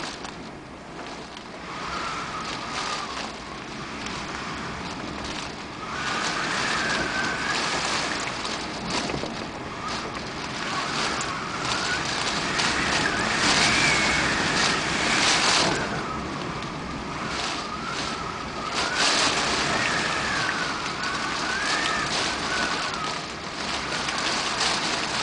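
Typhoon-strength wind blowing in gusts, swelling and easing every few seconds, with a faint wavering whistle that rises and falls as it gusts.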